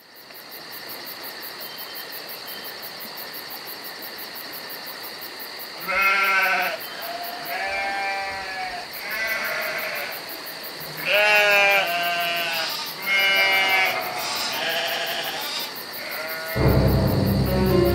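A farm animal bleating repeatedly, each call a wavering cry, over a steady hiss; music comes in loudly near the end.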